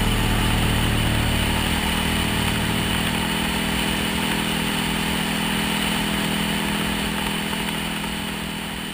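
Dirt bike engine running steadily at cruising speed, with wind noise on a helmet-mounted camera; the sound fades out near the end.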